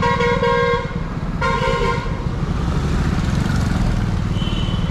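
A vehicle horn honks twice: a held note that cuts off a little under a second in, then a shorter one about a second and a half in. Underneath is the steady low running of a motorcycle engine with road noise.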